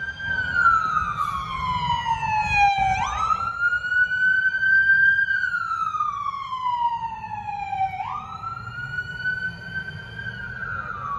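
Police car siren wailing. The pitch slides slowly down, jumps quickly back up and holds before falling again, in cycles of about five seconds, and is loudest in the first half.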